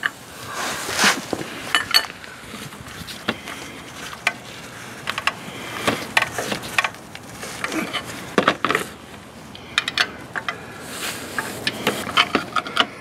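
Hand wrenches clinking and scraping irregularly as an open-end wrench is worked against a cap-type oil filter socket, straining to break a stuck oil filter loose.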